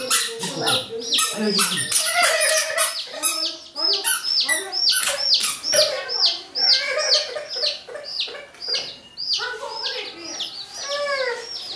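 Several baby chickens peeping without pause: a rapid string of short, high chirps that each slide downward, about three or four a second.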